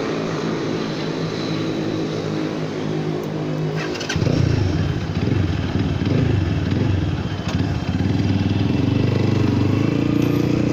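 Zipco KPR 200 motorcycle engine running steadily under way. About four seconds in it gets louder and revs up and down several times, then settles to a steady, higher note.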